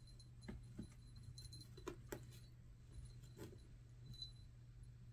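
Faint, scattered soft taps and scuffs of a kitten's paws against a carpeted cat tree, over a steady low hum.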